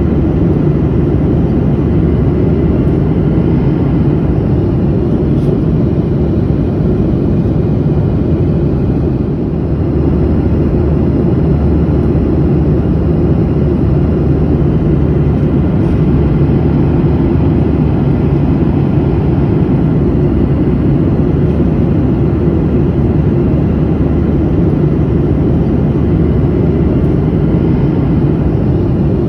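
Steady drone of an airliner in flight, heard from inside the cabin: engine and airflow noise, deep and even, with a slight brief dip about nine seconds in.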